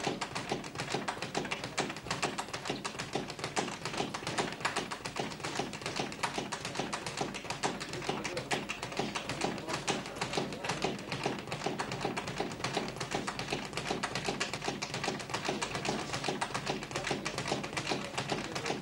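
Boxing gym training noise: a fast, unbroken patter of taps and light knocks, as from gloves landing and sparring footwork on the ring canvas.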